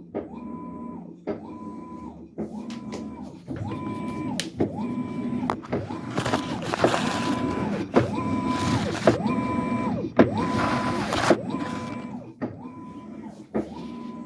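Washing machine in its wash cycle: the motor whine starts and stops in a steady rhythm of a little more than once a second, with a sharp knock at each stroke. Water sloshing swells for a few seconds in the middle.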